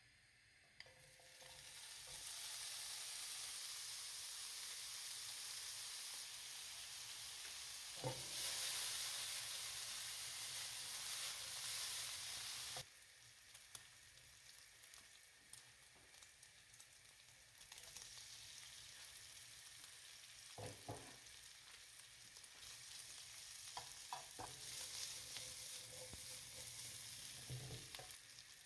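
Food sizzling in a hot frying pan while it is stirred, with a few knocks of a utensil against the pan. The sizzle drops suddenly just before halfway and carries on more quietly, then grows again.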